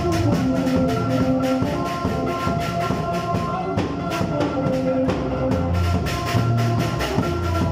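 Live band playing: electric guitars picking a melodic line of short, changing notes over a steady drum beat.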